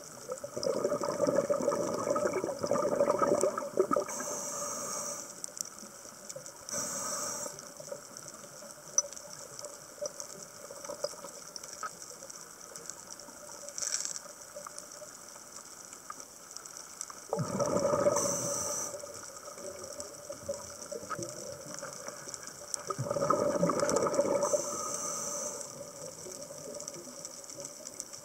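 Scuba diver breathing underwater through a regulator: three long bursts of exhaled bubbles, with short hisses from the regulator on the in-breaths between them.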